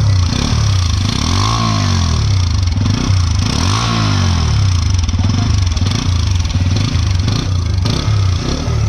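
TVS Apache RTR motorcycle's single-cylinder engine idling, blipped twice so that the revs rise and fall, about a second and a half in and again near four seconds.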